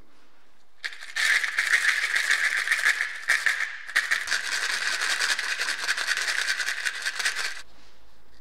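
Small steel screws rattling against the sides of a plastic cup as it is shaken in a chemical blackening solution. The rattling starts about a second in, breaks off briefly midway, and stops shortly before the end.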